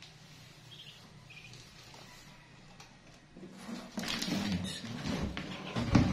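Newly hatched ducklings peeping faintly inside a cardboard brooder box. From about halfway through, the cardboard rustles and knocks as the box is handled, loudest near the end.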